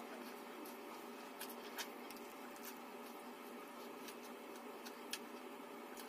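Faint eating sounds: a handful of short, sharp clicks and smacks as rice and fish curry are handled and eaten by hand, over a steady background hiss.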